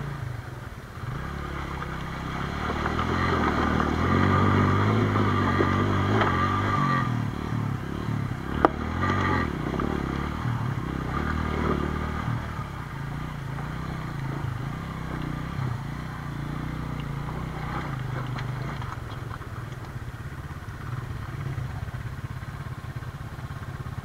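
Motorcycle engine running at low speed as the bike rolls through shallow water and over riverbed stones, with scraping and clattering from the tyres on the gravel. The engine is louder for a few seconds early on and then settles, and there is one sharp click about nine seconds in.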